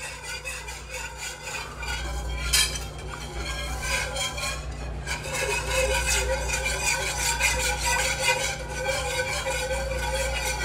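Wire whisk stirring milk and a flour-butter roux in a nonstick skillet, the wires swishing and scraping rhythmically against the pan, with one sharper clink about two and a half seconds in. The sauce base is being whisked smooth, free of lumps, as it heats toward a boil.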